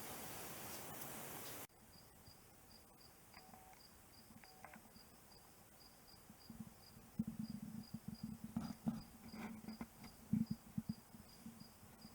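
Insect chirping steadily and evenly, about three chirps a second, after a cut about two seconds in. From about halfway there are irregular low rumbles and a few knocks, louder than the chirping.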